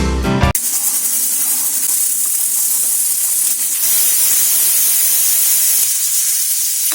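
Pressure cooker whistle: a steady jet of steam hissing out of the weight valve for about six seconds, a sign that the cooker has come up to full pressure. Acoustic guitar music cuts off about half a second in, just before the hiss.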